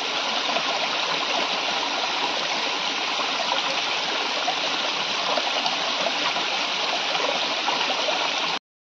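A small stream of water pouring down over rocks: a steady rushing splash that cuts off suddenly near the end.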